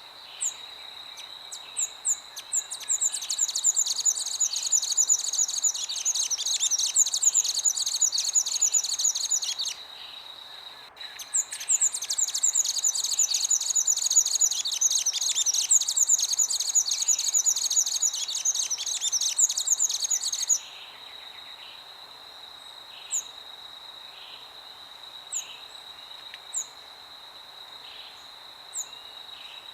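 Birds singing in two long spells of dense, rapid chirping, with single short chirps between and after, over a steady high-pitched insect drone.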